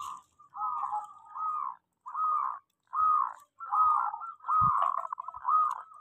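Caged zebra doves (perkutut) cooing in a run of about ten short phrases with brief pauses between them. A few faint knocks come through underneath.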